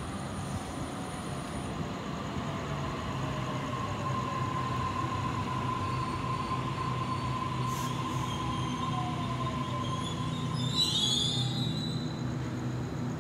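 Sydney Trains Waratah (A set) double-deck electric train slowing into a station, with a steady rumble, a steady high whine and a whine falling in pitch as it loses speed. About ten seconds in, a short, loud brake squeal as it draws to a stop.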